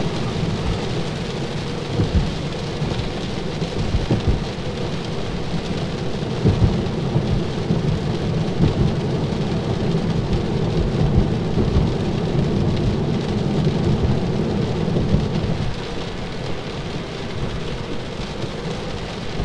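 Rain and wet-road noise heard inside a car cabin: a steady low rushing of rain on the car and tyres on a waterlogged road, with a few short thumps.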